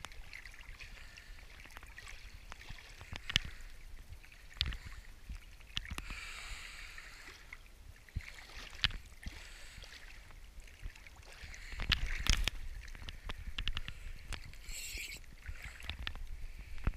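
Water lapping and sloshing around a diver floating at the surface, with scattered sharp knocks and bumps against the camera, busiest about three quarters of the way through.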